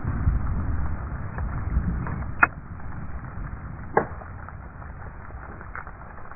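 Aftermath of an exploding-target blast: a low rumble fading away while bits of debris fall back to earth, with two sharp ticks of pieces landing about two and a half and four seconds in.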